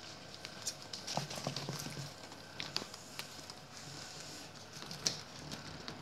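Puppies' claws clicking and scrabbling as they move about on a wooden floor: scattered, irregular light taps.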